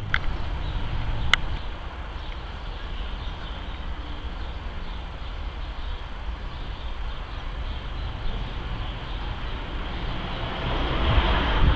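Steady low outdoor rumble that swells louder near the end, with two short sharp sounds in the first second and a half.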